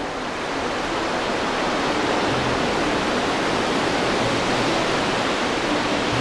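A steady rushing noise, like running water or a noise swell, that rises over the first two seconds and then holds, with faint music underneath.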